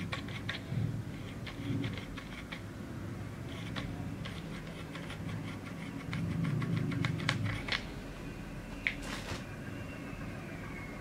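Plastic grabber tool worked against a cat's fur: irregular light plastic clicks, some in quick runs, over soft rubbing. A short scrape about nine seconds in.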